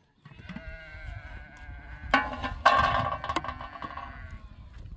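Livestock bleating: a few long pitched calls in a row, loudest in the middle.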